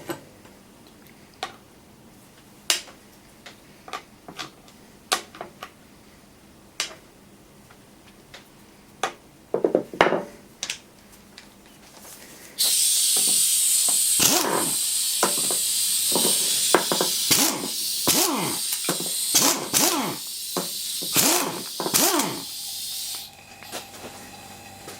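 Scattered clinks and knocks of metal tools and parts, then a loud steady hiss of compressed air escaping from a worn, leaking quick-connect air-hose fitting. The hiss starts abruptly about halfway through and cuts off near the end, with irregular metal clanks and knocks over it.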